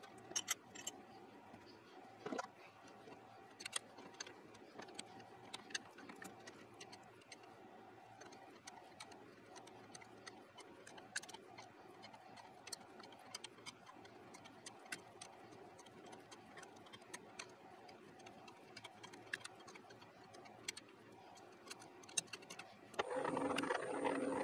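Scattered small metallic clicks and taps from hands and tools working at a lathe's tailstock drill chuck, over a faint steady hum. Near the end a louder steady machine hum with a few held tones starts up.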